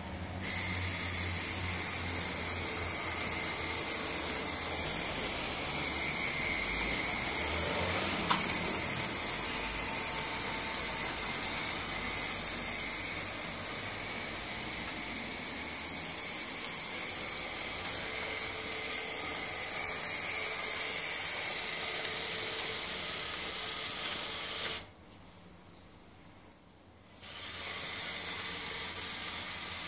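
Model Munich J1.30 tram running on its layout: a steady, high whirring hiss from its small electric motor and wheels on the rails, with one click about eight seconds in. The sound drops away for about two seconds near the end, then resumes.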